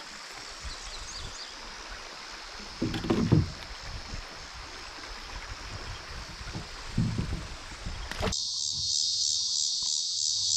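Steady rush of shallow creek water with a kayak on it, broken by two brief louder thumps about three and seven seconds in. Near the end the sound cuts abruptly to a steady, pulsing chorus of insects.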